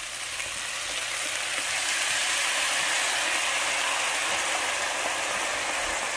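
White wine poured into a hot skillet of sausage, vegetables and toasted rice on high heat, sizzling as it hits the pan: deglazing. The hiss swells over the first couple of seconds, then holds steady.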